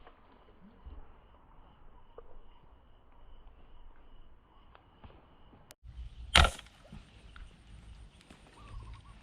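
A faint steady insect drone, then about six seconds in a single sharp snap of a fish-hunting arrow being shot.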